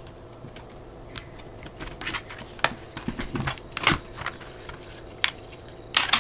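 Plastic parts of a JLS 2030B airsoft pistol clicking and knocking as they are handled and fitted together, putting the grip panels back on. Scattered sharp clicks, sparse at first and coming more often from about two seconds in.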